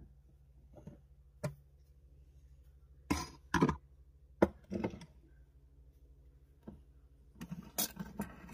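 A string of short, separate knocks and clinks from a clip-top glass jar with a bamboo lid being handled by hand, the loudest about three to five seconds in and a quick cluster near the end.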